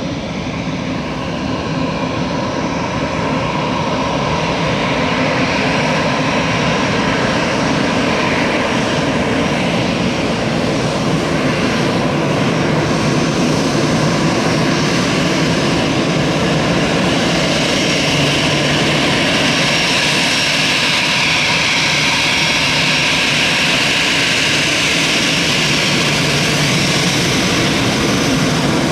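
Airbus A319 jet engines running, growing louder over the first several seconds and then holding steady, with a high whine coming up in the second half.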